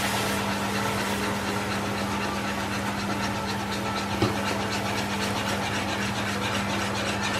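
Hot caramel hissing and bubbling as double cream is whisked into it, with a wire whisk beating rapidly against a metal saucepan. A steady low hum runs underneath.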